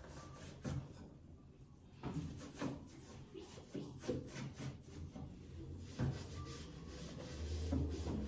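A cloth wiping and rubbing the underside of a kitchen range hood, with scattered light knocks and clunks as the hood is handled.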